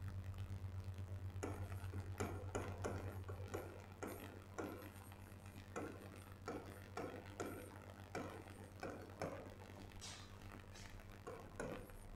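Chalk tapping and scraping on a blackboard in short, irregular strokes as words are written by hand, over a steady low electrical hum.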